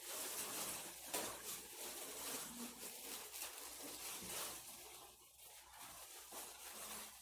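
A plastic wall-sticker sheet rustling and crinkling as it is handled, in short irregular bursts.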